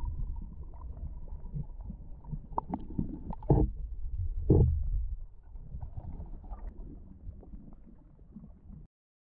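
Muffled underwater rumble and gurgling of moving water, picked up by an action camera in a waterproof housing, with two louder knocks about a second apart midway; the sound cuts off suddenly near the end.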